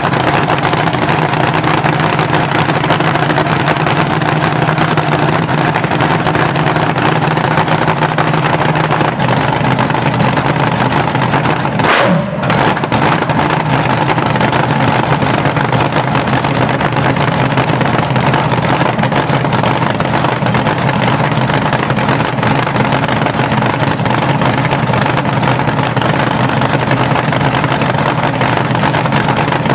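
Blown 468 cubic-inch big-block Chevy V8 on methanol, with a 6-71 supercharger, running steadily and loud at idle through open stub headers, warming up after its first start following a full rebuild. The engine note shifts slightly about eight seconds in and dips briefly a little under halfway through before carrying on.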